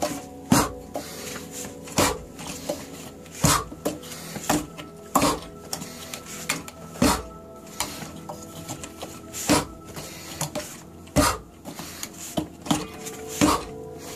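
Hand and forearm strikes against the wooden arms of a wooden training dummy: sharp wooden knocks, a louder strike about every one and a half to two seconds with lighter clacks in between.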